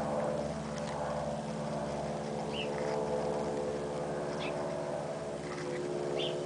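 A steady motor hum, even in pitch and level throughout, with a few short high chirps over it.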